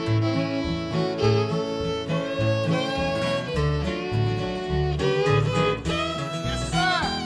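Bluegrass fiddle taking an instrumental break between sung verses, bowing a melody over acoustic guitar rhythm and low bass notes on each beat.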